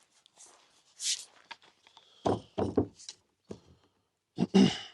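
A short airy hiss about a second in, then several thumps and knocks of gear being handled, the loudest just before the end.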